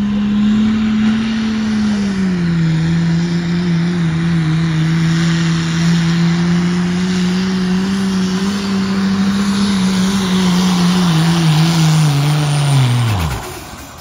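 Turbocharged Cummins inline-six diesel in a second-generation Dodge Ram pickup at full throttle pulling a weight-transfer sled. It holds a steady high-rev drone that dips slightly about two seconds in, then bogs down gradually, and its revs fall away sharply near the end as the pull ends.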